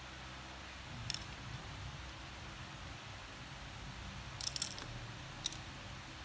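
Wooden colored pencils clicking against each other and tapping on a hard surface as they are set down and arranged: a single click about a second in, a quick run of clicks past the middle, and one more near the end.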